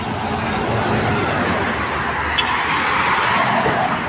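Road traffic passing close by, with a city bus pulling past: a steady rush of tyre and engine noise that swells to a peak about three seconds in and then eases off.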